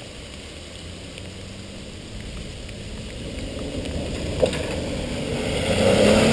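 Jeep Wrangler engine pulling under load as the 4WD climbs a muddy bank. It grows steadily louder as it comes closer and is loudest near the end. A single sharp knock sounds just past four seconds in.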